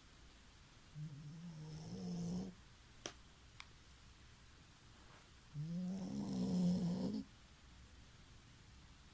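American Cocker Spaniel snoring: two long snores, each a pitched rasp that rises slightly, with two faint ticks between them.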